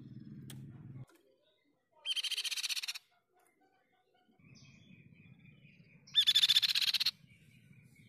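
Crescent-chested babbler (tepus pipi perak) singing two loud, rapid trills of about a second each, roughly four seconds apart.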